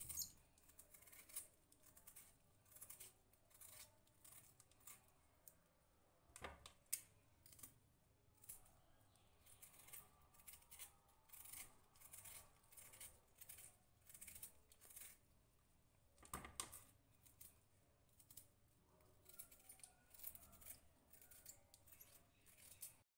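A kitchen knife cutting through a bitter gourd held in the hand: a run of faint, crisp cuts, about one or two a second, with two louder ones.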